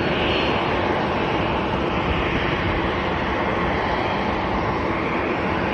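Jet engines of a DHL cargo airliner taxiing, a steady, even noise with no breaks.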